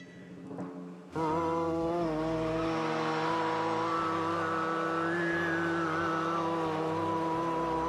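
A woman making a sustained, droning, engine-like noise with her voice, starting about a second in and held without a break, its pitch rising briefly in the middle before settling back.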